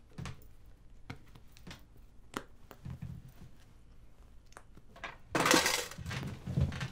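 Cloth rustling with scattered small knocks and clicks as a quilt is handled at a sewing machine, then a loud swish about five and a half seconds in as the quilt is flung over the machine.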